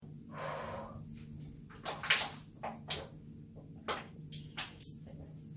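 Plastic water bottle crackling and clicking in the hands as it is handled and tipped up to drink: a short hiss at the start, then about half a dozen sharp crackles, the loudest about two seconds in, over a low steady hum.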